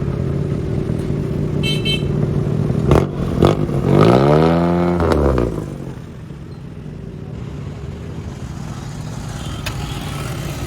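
A car engine idling steadily, then revved once about four seconds in, its pitch rising and falling back, just after two sharp knocks. It then runs on more quietly.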